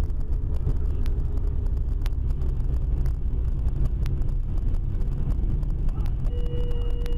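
Steady low rumble of a car's engine and tyres, heard from inside the moving car through a dashcam microphone, with a few light knocks. A steady tone sounds for about two seconds near the end.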